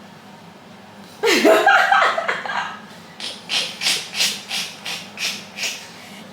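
A person laughing: a short voiced outburst, then a run of about eight quick, breathy laugh pulses that die away near the end.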